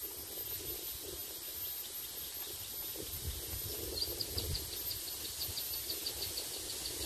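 Outdoor ambience: a steady hiss with uneven wind rumble on the microphone. From about halfway, a rapid, even run of high chirps comes in, about five a second.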